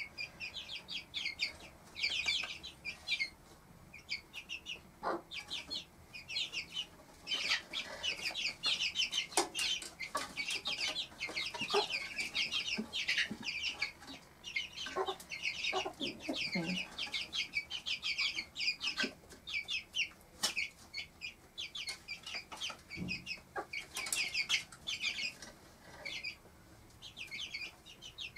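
Four-week-old cuckoo Marans chicks peep continuously in a rapid run of short, high cheeps. A broody hen clucks lower a few times around the middle.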